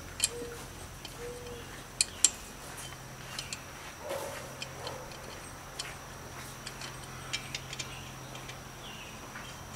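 Sharp metallic clicks and clinks at irregular intervals, the loudest two close together about two seconds in: lug nuts being handled and threaded onto the wheel studs of a Subaru Legacy's front wheel.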